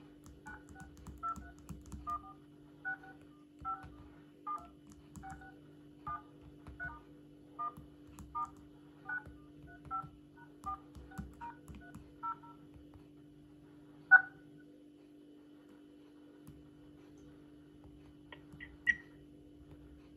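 Smartphone dialer keypad DTMF tones: a short two-note beep for each key press as a long number is entered, about one press a second. Near the end the tapping stops, followed by one louder beep and then a few short higher beeps, over a faint steady hum.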